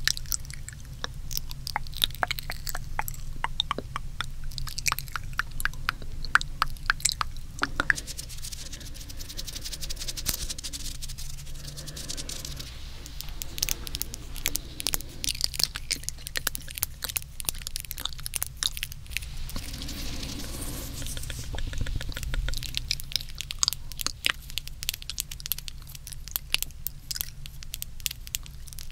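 Close-up wet mouth sounds: rapid, dense wet clicks and smacks of tongue and lips, with a few short breathy stretches.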